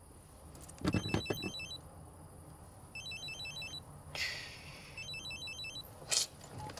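Mobile phone ringing: three short bursts of a rapid two-tone electronic trill, about two seconds apart. A few knocks sound about a second in, and a short "shh" comes a little after the middle.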